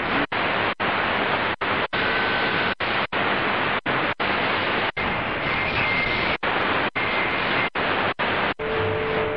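Qodosen DX-286 shortwave receiver giving out a steady hiss of static as it is tuned up from 9940 kHz, the audio cutting out briefly about a dozen times as the frequency steps. Near the end a steady tone comes in.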